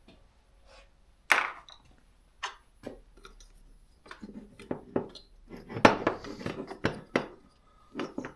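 Hand tools and small metal chainsaw parts clinking and knocking as they are handled on a workbench: one sharp clack about a second in, a few scattered taps, then a busy run of clatters from about four seconds in.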